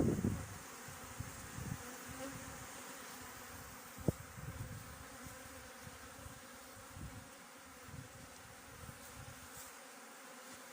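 Honeybees buzzing in a steady hum around their hives as they fly out on an early-spring cleansing flight. There is a brief low rumble at the very start and a single sharp click about four seconds in.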